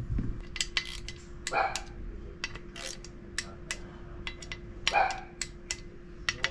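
Scattered light clicks and clinks, with two short bark-like yelps, one about a second and a half in and another about five seconds in. A faint steady hum runs underneath.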